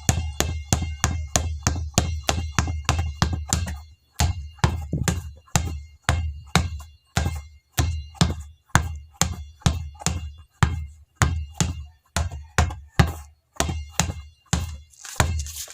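Basketball being dribbled on a hard floor: a steady run of bounces, about three a second, each a sharp slap with a low hollow boom and a short ring, broken by a few brief pauses.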